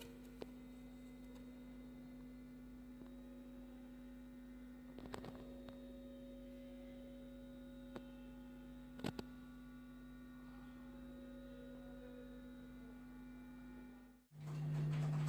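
Steady low electronic hum, an unchanging tone with faint overtones and a few soft clicks. About fourteen seconds in it cuts out and a louder, deeper hum starts.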